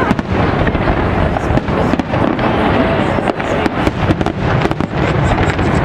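Aerial fireworks going off in quick succession: a dense run of bangs and crackles over a continuous rumble.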